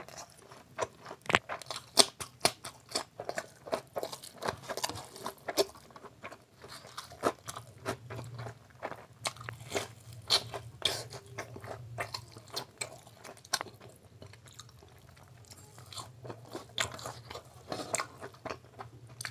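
Close-miked eating by hand: wet chewing and lip-smacking on mouthfuls of rice and curry, with many sharp, irregular crunchy clicks. The clicks ease off for a few seconds past the middle, then pick up again.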